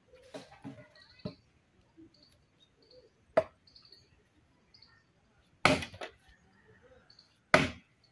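Small axe chopping a wooden branch on the ground: separate sharp blows a second or two apart, the three in the second half the loudest.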